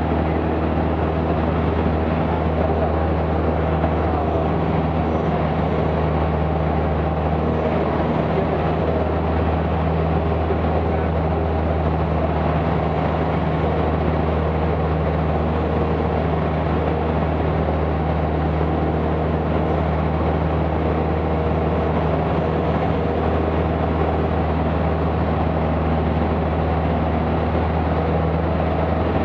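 Cessna 172's engine and propeller droning steadily in cruise flight, heard from inside the cockpit.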